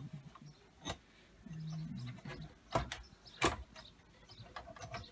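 Sheet-metal computer casing panels being handled and fitted back onto an opened all-in-one desktop: a few sharp metallic clicks and knocks, the loudest about three and a half seconds in.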